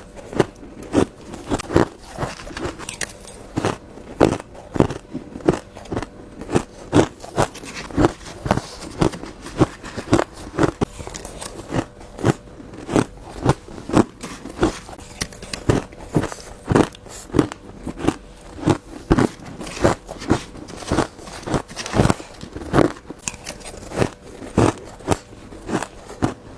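Ice cubes being bitten and crunched between the teeth, close to the microphone: a steady run of sharp crunches, about two a second.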